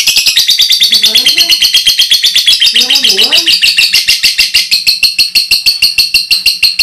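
Lovebird ngekek: a long, unbroken, loud chatter of rapid high-pitched chirps, about a dozen a second, without a pause.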